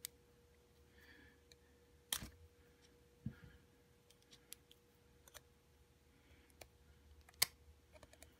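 Scattered small metallic clicks and taps as a pin-tumbler lock cylinder is taken apart by hand with a pick, the metal parts knocking against each other while a part is pulled off. Two sharper clicks stand out, about two seconds in and near the end, with a duller knock just after the first.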